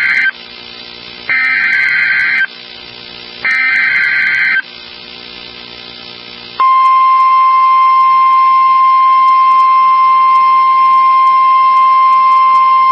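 Emergency Alert System header from NOAA Weather Radio: a burst of buzzy digital data tones ends just after the start and two more follow, each about a second long with about a second between them. About six and a half seconds in, the steady single-pitched weather radio alarm tone begins and holds, signalling a new weather alert.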